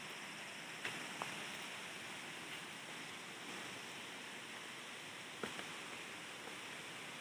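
Steady rush of a waterfall, an even hiss of falling water, with a few short sharp clicks from footsteps or twigs on the path, about a second in and again after five seconds.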